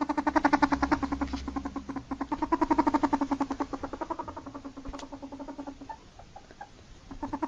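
Ferret dooking: a rapid string of soft clucks, about ten a second, dying away around six seconds in and starting again near the end.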